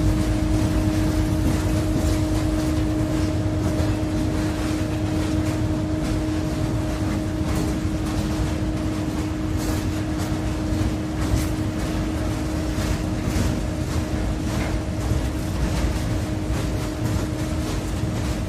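Freight train of fuel tank wagons rolling past: a steady low rumble with irregular clicks and knocks of the wheels over the track, under a steady hum.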